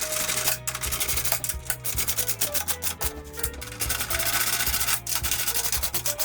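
Background music with held bass notes, over a dense, rapid scratchy clicking from a ratchet wrench tightening the plow's mounting bolts.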